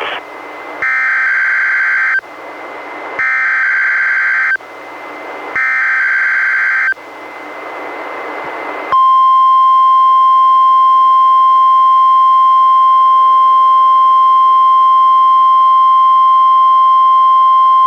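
NOAA Weather Radio Required Weekly Test heard through a Reecom R-1630 weather radio. Three short bursts of SAME digital header data, each about a second and a half and separated by receiver hiss, are followed about nine seconds in by the steady 1050 Hz warning alarm tone, which holds loud and unbroken.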